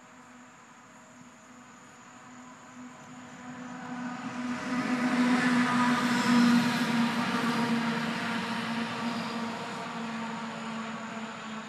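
A vehicle passing by: a steady hum that slowly swells to its loudest about six seconds in, then gradually fades.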